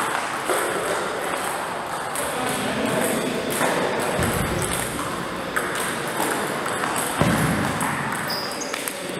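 Table tennis ball clicking off the bats and the table during a rally, with irregular sharp ticks.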